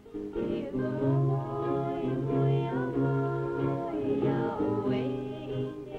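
Background film-score music with several melodic lines holding and gliding between notes over a steady low note.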